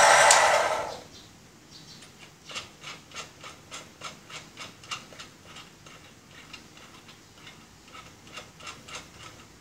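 The belt-driven motor of a homemade tool grinder runs loudly, then is switched off and dies away within about a second. A run of light clicks follows, about three a second, as the toothed index ring of the tool-holding head is turned by hand.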